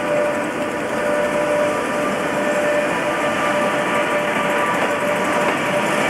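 British Rail Class 87 electric locomotive passing close by, a loud steady rush of running noise with a held whine of several steady tones over it.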